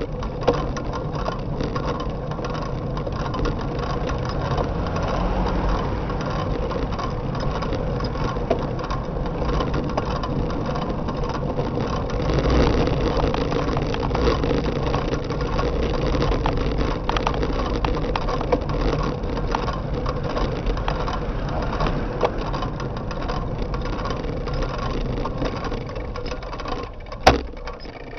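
Steady wind and road rumble from riding a bicycle along a paved road, heard from a handlebar-mounted camera. A single sharp knock near the end, after which the noise drops off.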